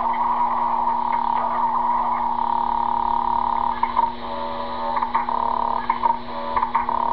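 Electronic sound effects from a CB radio echo and noise-toy box: a steady, rough tone with a low hum beneath. About four seconds in it changes to a short stepped tone, then breaks into choppy stuttering.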